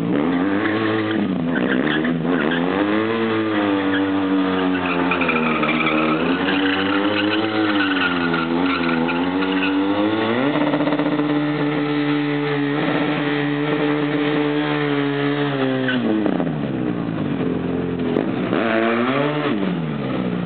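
Stunt motorcycle engine revving up and down repeatedly, then held at steady high revs for about five seconds while the rear tyre spins and smokes. Near the end the revs drop off, then rise again.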